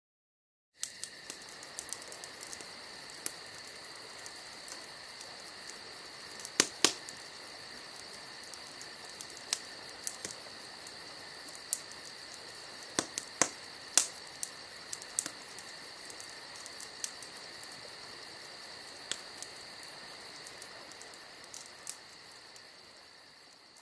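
Crickets chirping in a steady, high, shrill chorus that starts about a second in, with scattered sharp clicks over it.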